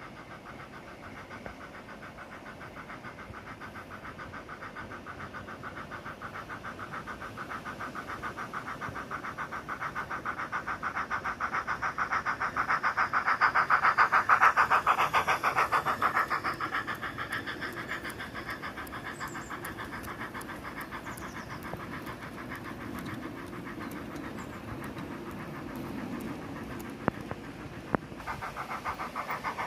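Model steam locomotive and its long train of tank wagons running past on garden-railway track: a rapid, even beat that grows louder as the train approaches, is loudest about halfway through as it passes close by, then fades as it moves away.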